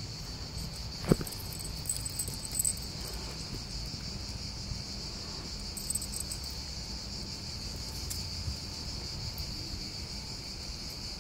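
Steady chorus of insects, a high even drone that holds unchanged, with a single thump about a second in.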